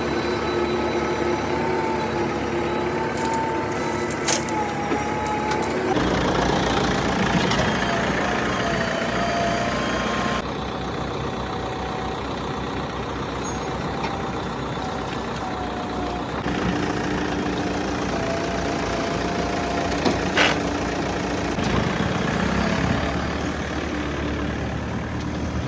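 Diesel engines of a backhoe loader and tractors running steadily, with a few short metallic knocks. The engine pitch changes abruptly several times.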